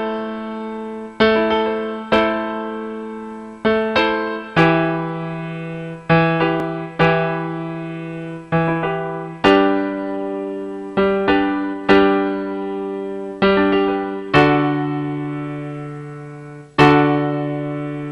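Slow piano chords, struck about every one to two seconds and each left to ring and fade before the next, with the bass note moving lower partway through.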